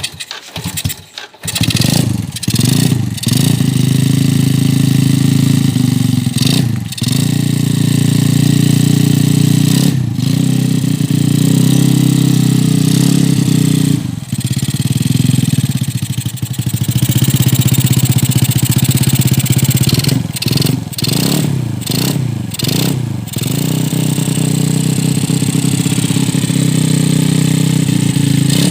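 Yamaha Jupiter Z four-stroke single-cylinder engine in a Honda C70 motorcycle starting about a second in, then run and revved, with repeated throttle blips that rise and fall in pitch.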